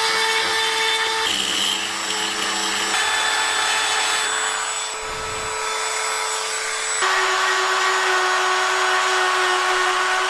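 Old electric appliance motor, the repaired potato peeler's, running steadily with a hum and whine; its pitch steps down abruptly about a second in and again near the middle.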